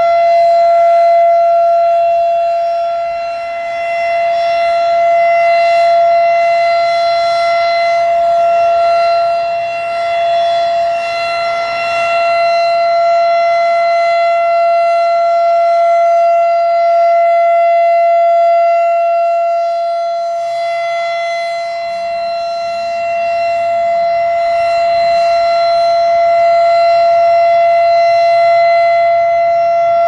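Federal Signal RSH-10 Thunderbeam electronic rotating siren holding a steady single-pitch alert tone, its loudness slowly swelling and fading as the head rotates.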